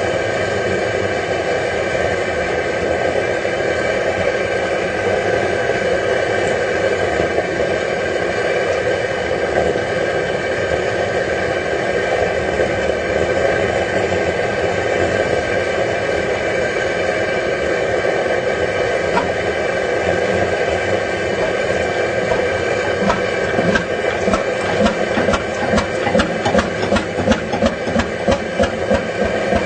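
Steady hissing roar of the propane starting burner heating the hot head of a 15 HP Fairbanks Morse Type Y oil engine. About 24 seconds in, the engine catches after being rolled back against compression and begins a regular beat of exhaust puffs, a little under two a second.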